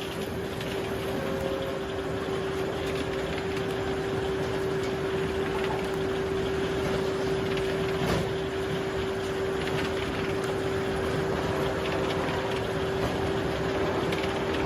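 Woodworking saw machinery running steadily, its motor holding one constant hum over an even whirr of noise.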